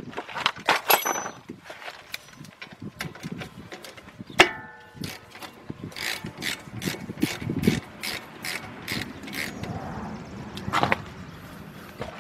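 Ratchet wrench clicking in short runs on a brake caliper bolt, about three clicks a second in the longest run. A sharp metallic clink that rings briefly comes about four seconds in, and another knock follows near the end.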